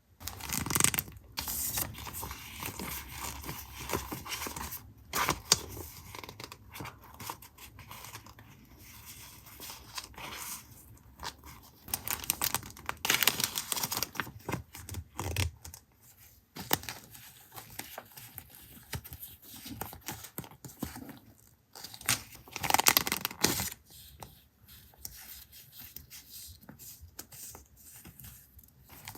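Paper being handled for a collage: crinkling and rustling, with a few longer tearing strokes, the loudest about a second in, around thirteen seconds in and around twenty-three seconds in.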